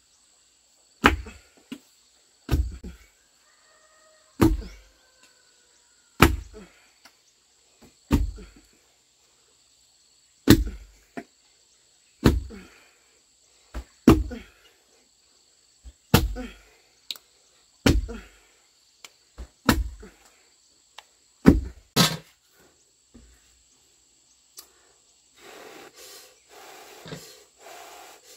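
Long wooden pestle pounding cooked sticky rice in a wooden mortar: a dull, heavy thud about every two seconds, a dozen or so strokes, stopping a few seconds before the end.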